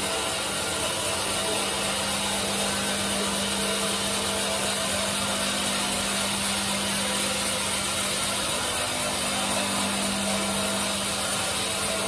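Large Benso band sawmill cutting lengthwise through a hard teak log, running steadily: a constant hum under an even rushing noise from the blade in the wood.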